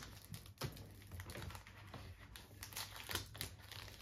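Irregular light clicks and crinkles of a foil Pokémon booster pack being worked open by hand, with trading cards handled on a table.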